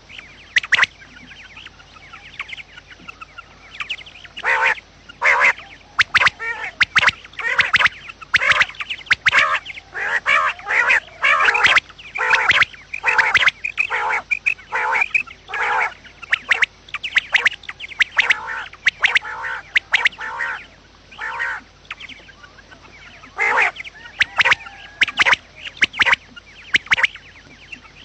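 Quail calling: many short, sharp notes in quick clusters, repeated again and again with brief lulls. It is a recorded lure call for drawing quail in when trapping.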